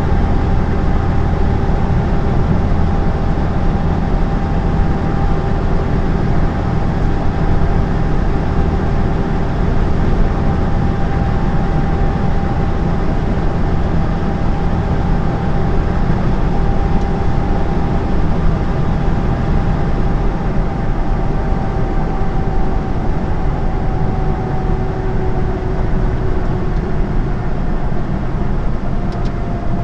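Steady drone of a lorry's engine and tyre noise heard inside the cab while cruising on the motorway, with a faint whine that sinks a little in pitch over the last few seconds.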